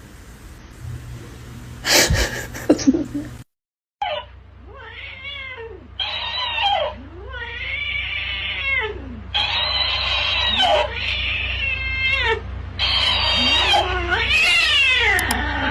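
Cat caterwauling: a run of drawn-out yowls, each rising and then falling in pitch, one after another from about four seconds in. Before them there is a sharp knock about two seconds in.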